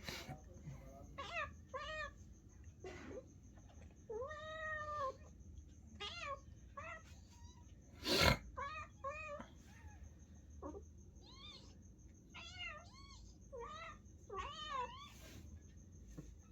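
Cat meowing over and over in short, high calls, with one longer meow about four seconds in. A single sharp knock about eight seconds in.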